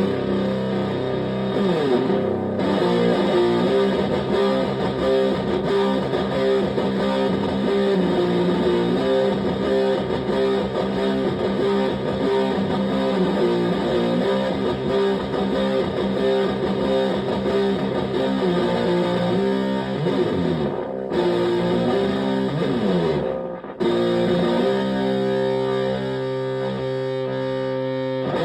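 Electric guitar, a Stratocaster, through a Tone Bender MKII-style fuzz pedal and a Fender Twin Reverb clone amp. It plays heavily fuzzed riffs with sustained notes and a few sliding notes. There are two brief gaps about 21 and 24 seconds in, and it ends on a held chord.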